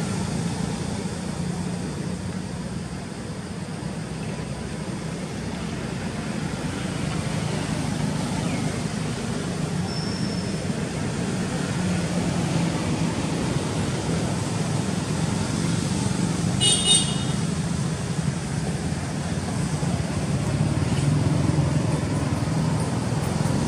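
Steady traffic noise from a nearby road, with one brief high-pitched toot about two-thirds of the way through.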